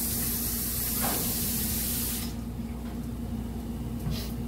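Kitchen tap running hot water into the sink over hands being washed, a steady hiss that shuts off about two seconds in. A steady low hum runs underneath, and a faint click comes near the end.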